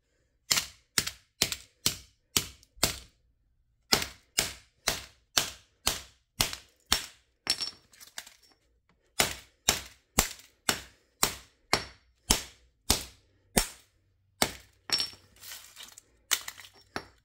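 A hammer repeatedly striking the already shattered LG Nexus phone: sharp impacts, about two to three a second, with short pauses between runs of blows.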